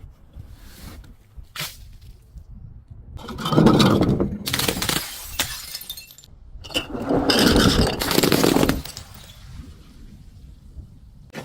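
A glass bottle being crushed, crunching and shattering in two loud stretches of about two seconds each, the first about three seconds in and the second about seven seconds in, with a few faint clicks before them.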